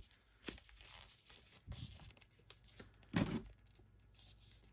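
Faint handling sounds of a plastic action figure as slipper accessories are pushed onto its feet: a few short scrapes and clicks, the loudest about three seconds in.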